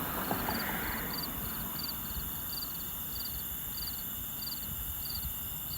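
A cricket chirping steadily, short high chirps about twice a second, over a low steady outdoor rumble that eases after the first couple of seconds.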